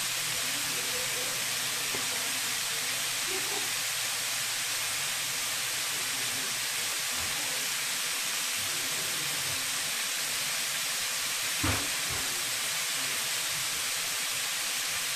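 Breaded chicken tenders deep-frying in oil on medium-high heat in a stainless steel skillet: a steady sizzle, with one brief knock near the end.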